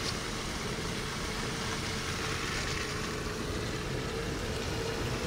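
Steady road and tyre noise inside a car driving along a snowy interstate, with a faint steady hum under it.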